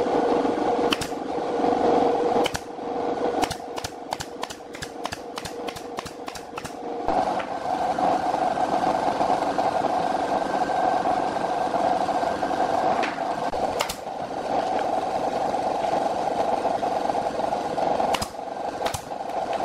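Pneumatic nail gun firing sharp shots into plywood cabinet panels: a few single shots, then a fast run of about a dozen a few seconds in, and a few more single shots near the end. A steady machine hum from the shop runs underneath.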